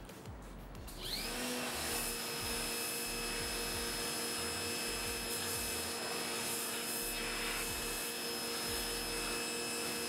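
Small electric pressure washer (1700 PSI) starting about a second in, its motor spinning up with a quick rising whine, then running at a steady pitch.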